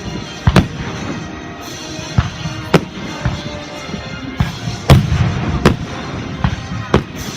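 Fireworks going off: about eight sharp bangs at irregular intervals, the loudest about five seconds in, over music playing.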